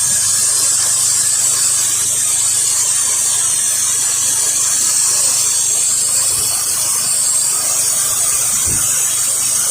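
Pressure washer spray hissing steadily out of the wand's nozzle during a low-pressure rinse, with the pressure washer's engine running as a steady low hum underneath. A couple of low wind buffets hit the microphone.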